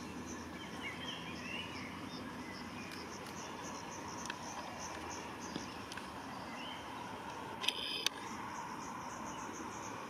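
Outdoor ambience dominated by an insect chirping in an even, high pulse about four times a second, with a few short bird chirps early on. A brief sharp rattle sounds about eight seconds in. The airliner cruising overhead is not heard.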